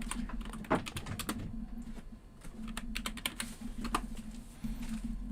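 Typing on a computer keyboard: a run of irregular key clicks, typing in a search, over a steady low hum.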